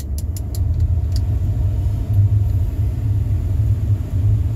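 A few quick clicks of the climate-control buttons, then the heater blower at full speed sends a low, uneven rumble of air over the microphone, above the Lincoln Navigator's engine idling after a cold start.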